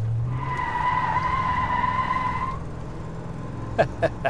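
The 460 V8 of a 1973 Mercury Marquis accelerating at half throttle as the car turns out onto the road. For about two seconds near the start it is joined by a steady high-pitched squeal. A few short sharp sounds come near the end.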